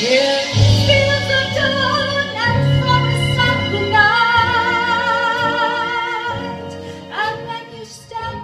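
A woman singing into a microphone through a PA speaker over instrumental accompaniment, holding a long note with vibrato in the middle; the music gets quieter near the end.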